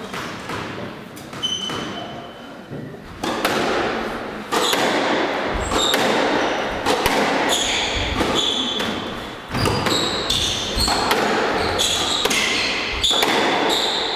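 Squash rally in a large hall: the ball cracking off racquets and the court walls, with sneakers squeaking on the wooden floor. The rally begins about three seconds in, after a quieter lull.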